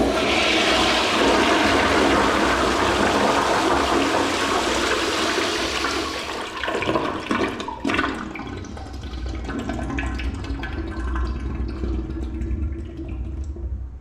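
A toilet flushing: a loud rush of water that begins abruptly, holds for about six seconds, then tapers into a lower swirling flow, with a brief sharp sound about eight seconds in.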